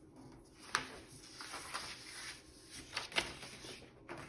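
Sheets of paper being handled on a tabletop: slid, lifted and laid down with a dry rustling, and two sharp taps, about a second in and about three seconds in.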